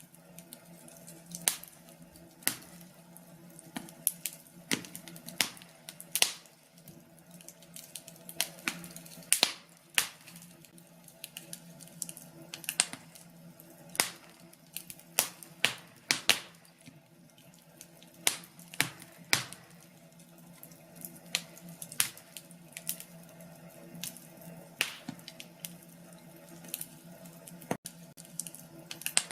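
Wood fire crackling, with irregular sharp pops, a few of them loud, over a faint steady hum.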